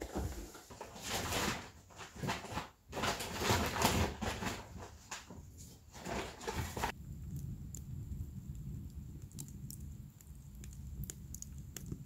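Split firewood logs knocking together and going into a rustling plastic bag at a log pile. About seven seconds in, this gives way to a log fire burning in a wood-burning stove: a steady low rumble with faint crackling ticks.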